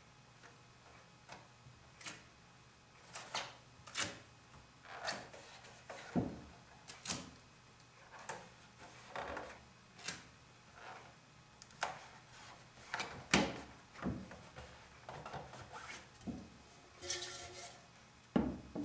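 Hands handling a silkscreen frame and its film positive: a string of short rubbing and rustling sounds and light knocks, about one a second, with a dull knock near the end as the frame is moved.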